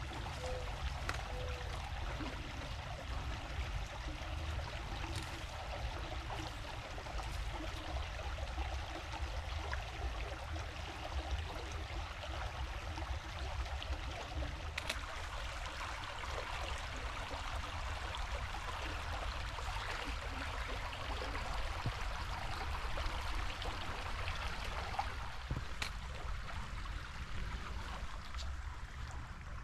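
Small forest creek flowing steadily over its bed, a continuous babbling rush, with a low rumble underneath.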